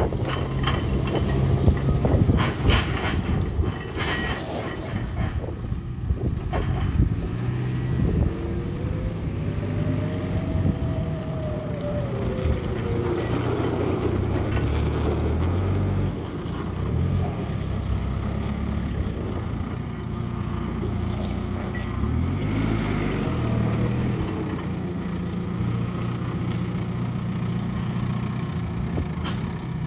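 JCB 526-56 telehandler's diesel engine running as the machine drives and turns, its pitch stepping up and down. Twice a whine rises and then falls away. There are a few sharp clicks in the first few seconds.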